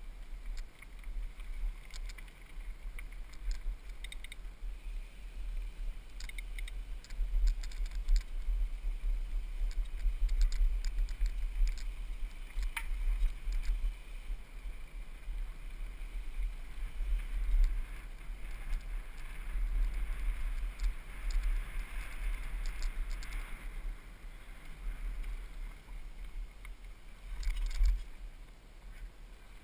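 Wind buffeting the helmet camera's microphone during a mountain bike ride, a gusting low rumble, with scattered bursts of rattling and clicking from the bike over the bumpy dirt track and one sharp knock about halfway through.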